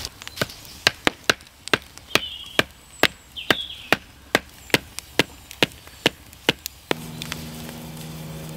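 Pointed hazel stick being hammered into the ground with sharp wooden knocks, about two to three a second. The knocks stop about seven seconds in and a steady low hum takes over.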